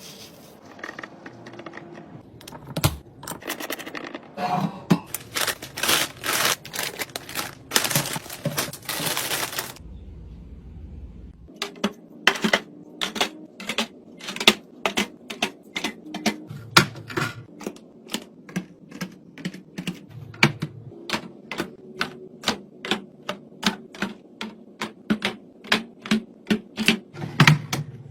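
Packaging rustling and crinkling for several seconds, then a long run of sharp clicks and taps, roughly two a second, as grocery items and containers are set down one after another.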